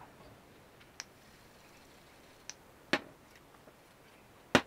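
Sparse handling sounds of a meat cleaver being worked on at a bench: a few light clicks, then two sharper knocks, the louder one near the end.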